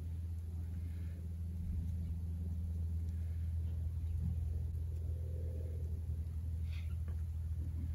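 Steady low mechanical rumble with a hum, from an unseen engine or machine, with a few faint light clicks near the end as the antenna wire is handled.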